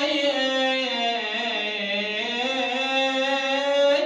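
A slow, mournful Arabic song: one long, held melodic line that slides down in pitch to about two seconds in, then climbs back up.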